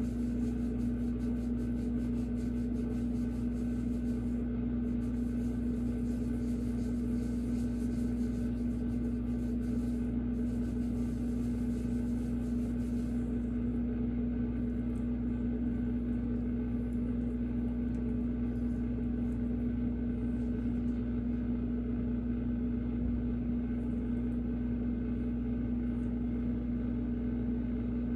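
A steady, unchanging machine hum with a pitched drone and a low rumble beneath it, with faint high crackling over roughly the first half.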